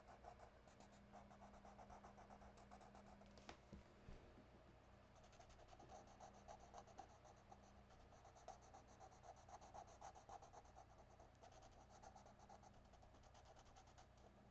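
Faint scratching of a pen on paper as dark areas of a drawing are shaded in with quick back-and-forth strokes, with one sharp tick about three and a half seconds in.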